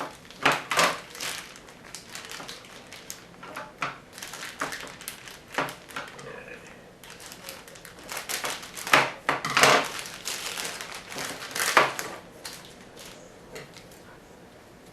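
Handling of packaging and parts: irregular bursts of crinkling and rustling with light knocks, loudest about nine to twelve seconds in.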